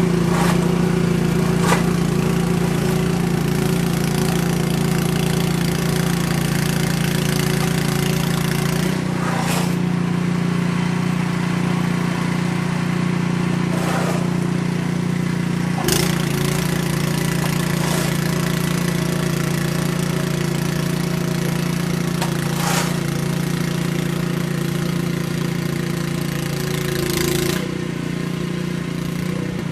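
An engine running steadily at a constant speed, with a few brief knocks or clicks now and then.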